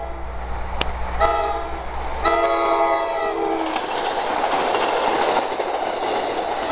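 NJ Transit Atlantic City Line train's horn blowing at a grade crossing: the end of one blast, then a short blast and a longer one, its pitch dropping as the train reaches the crossing, about three and a half seconds in. Then comes the loud, steady rush of the train passing close at speed, with wheel clickety-clack.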